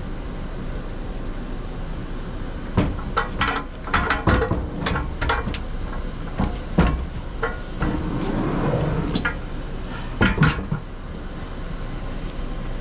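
Heavy steel B&W Companion fifth wheel hitch being lifted over the tailgate into a pickup bed: a run of metal clanks and knocks starting about three seconds in, a scraping slide around eight seconds, then two last clanks as it is set down.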